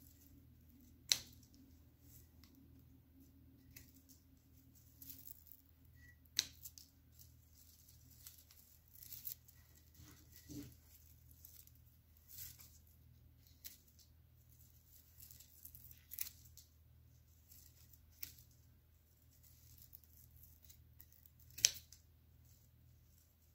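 Scissors cutting papyrus stems: a few sharp snips, the loudest about a second in and near the end, between quieter rustling of cut stems being handled, over a low steady hum.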